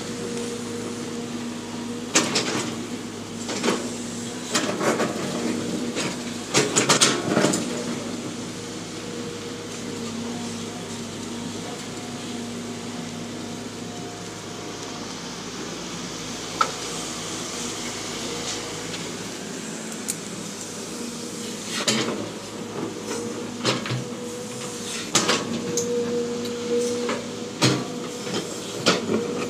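Hitachi crawler excavator's diesel engine running at a steady pitch. Its bucket digs into rocky soil and loads it, with bursts of clanks, scrapes and knocks, the busiest in the first few seconds and again in the last third.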